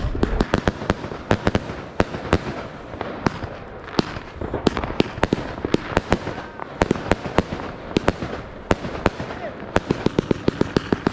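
Fireworks going off in quick, irregular succession: sharp bangs and cracks, several a second, as aerial shots burst overhead, with faster strings of cracks near the end.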